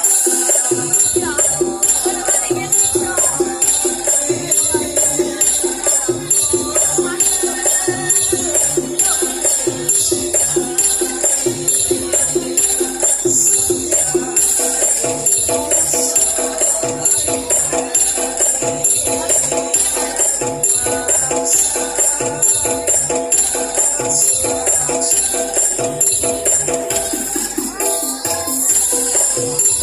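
Live Javanese traditional ensemble music playing a fast, steady, driving rhythm of drums and jingling metallic percussion.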